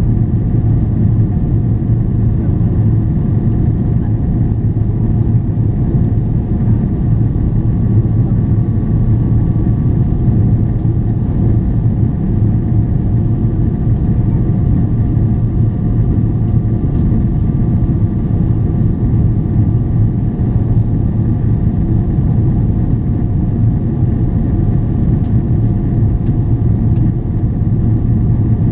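Steady cabin rumble inside a Boeing 777-300ER climbing after takeoff: its GE90-115B turbofans and the airflow over the fuselage, with a faint steady whine of tones above the rumble.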